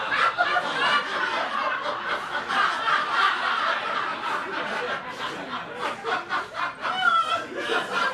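A theatre audience laughing, many people chuckling and snickering at once without a break.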